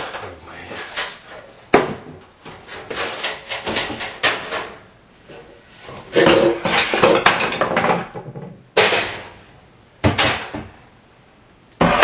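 Irregular knocking and clattering as an over-the-range microwave is handled on its wall-mounting bracket, with a sharp bang a couple of seconds in and another near the end.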